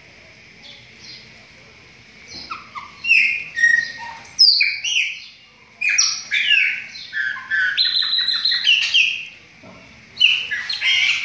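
Chopi blackbird (pássaro-preto) song: a few soft calls, then from about two and a half seconds in a loud, varied run of quick descending whistles and chattering notes, broken by two short pauses.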